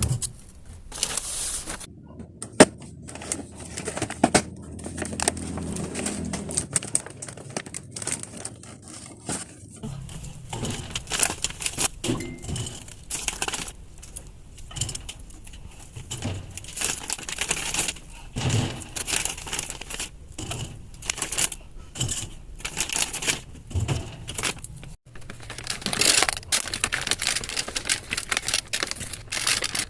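Restocking a store fridge: irregular clicks and knocks of containers being set onto the shelves and against each other, mixed with the crinkling of plastic packaging.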